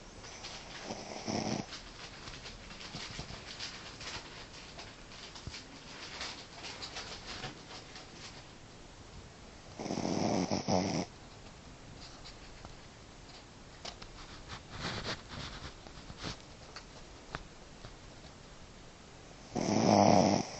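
A sleeping dog snoring: three snores, each about a second long, spaced about nine to ten seconds apart. The first is weak and the last is the loudest.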